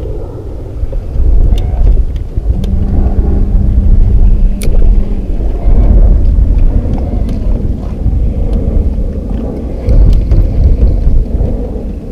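Wind buffeting the microphone out on a fishing boat: a loud, uneven low rumble. A steady low hum joins for about three seconds early on, and a few faint clicks are heard.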